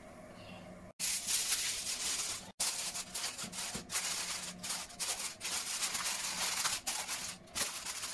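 Aluminium foil crinkling and crackling as it is pressed and smoothed by hand over the rim of an oven dish, in quick irregular crackles starting about a second in.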